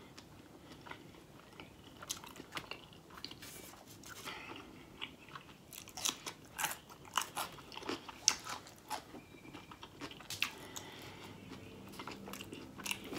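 Close-miked mouth sounds of a person biting and chewing a pickle, with irregular crisp crunches and wet clicks.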